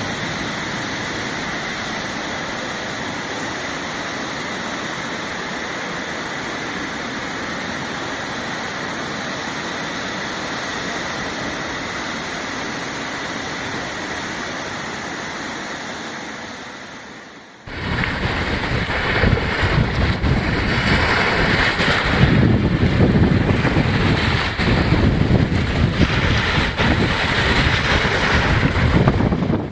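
Small ocean waves washing onto a sandy shore, a steady wash of surf. About two-thirds of the way through it cuts to louder, gusty wind buffeting the microphone over breaking waves.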